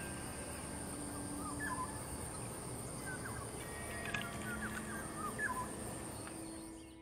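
Birds chirping in short, scattered calls over a steady high-pitched insect drone and low outdoor background noise.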